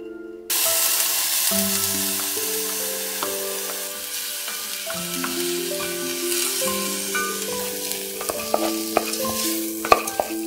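Rice sizzling as it is toasted in a pot and stirred with a wooden spoon, the first step of making rice porridge (juk); the sizzle starts about half a second in, with a few sharp taps and scrapes of the spoon near the end. Background music with plucked notes plays throughout.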